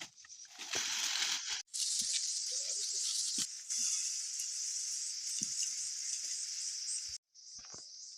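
Steady high-pitched chorus of crickets, loud and harsh through most of it, cutting off abruptly about one and a half seconds in and again near the end, with a few light knocks.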